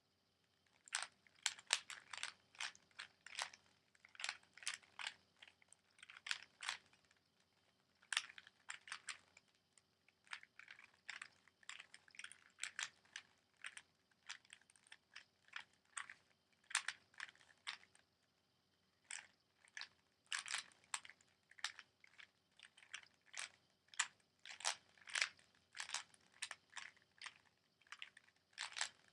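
A Rubik's Cube being turned fast in a speedsolve: quick plastic clicking of the layers in bursts of several turns, with short pauses between bursts and two longer breaks, about seven and about eighteen seconds in.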